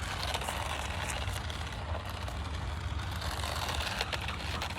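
Remote-control toy Jeep driving, its small electric motor and gears whirring steadily with a few light ticks.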